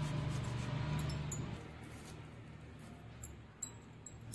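Peeled boiled potato rubbed over a hand grater: a soft scratchy rasp that fades after about a second and a half, followed by a few light clicks near the end.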